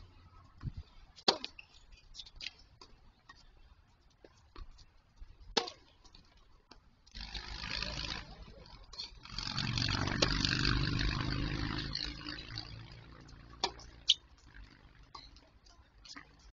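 Tennis balls struck by rackets on an outdoor hard court: sharp pops a few seconds apart, the loudest about a second in. From about seven to thirteen seconds in, a rushing noise swells and fades.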